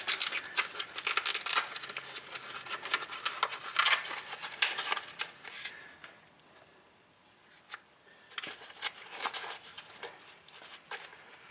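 Hands handling the ATV's plastic parts and wiring harness, making irregular clicks and rustles. The handling pauses briefly about two-thirds of the way in, then the clicking resumes.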